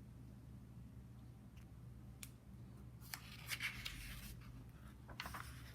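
Faint paper rustle with a few light clicks as a picture book's pages are handled and turned, in short bursts about three seconds in and again near the end.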